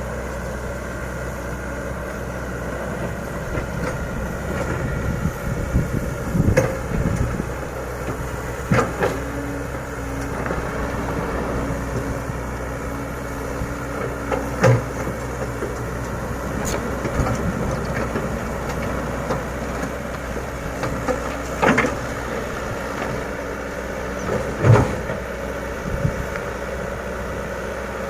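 A Komatsu PC100 hydraulic excavator's diesel engine runs steadily while the bucket levels sand, with several sharp clunks spread a few seconds apart.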